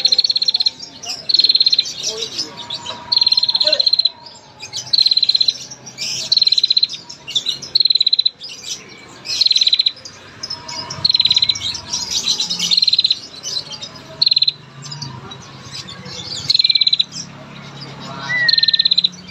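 A female prenjak, a small cisticolid warbler, repeats long, rapid ticking trills (the 'ngetir' call) about a dozen times, one every second and a half or so, with softer chirps between them. This female trill is used as a lure to set male prenjak singing.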